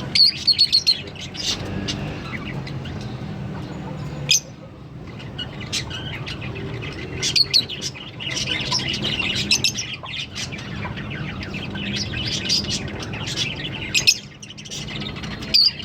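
A pair of Fischer's lovebirds chirping and twittering rapidly, with sharp, shrill calls every few seconds.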